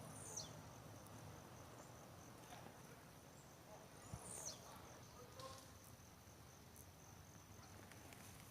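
Faint, steady high-pitched insect chirring, like crickets, with two short high whistles that fall in pitch, one near the start and one about halfway through.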